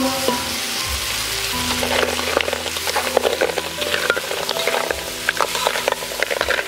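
Snails in their shells sizzling in hot chili paste in a metal wok while a metal ladle stirs them, with many quick clicks of shells knocking against each other and the pan over a steady frying hiss.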